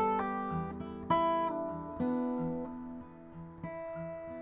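Acoustic guitar music: chords picked and strummed, each left to ring, with a new chord struck about every second.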